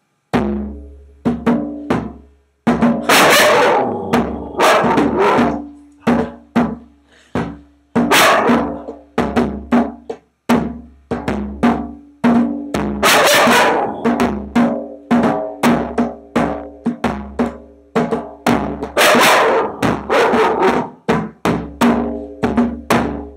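Djembe played by hand in a continuous rhythm of sharp slaps and deeper open tones, with a few longer, brighter flourishes about every five seconds. A young husky gives voice at the drum.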